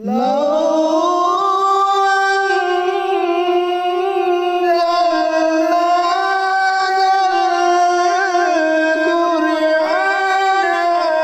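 An unaccompanied solo voice singing long held notes that waver slowly in pitch, beginning with a rising swoop up to the first note.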